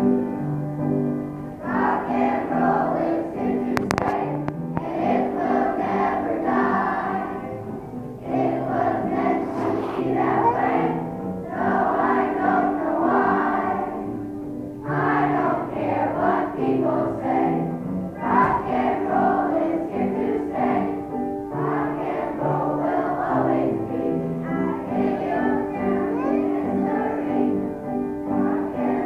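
A children's choir singing over instrumental accompaniment, in phrases with short breaks between them.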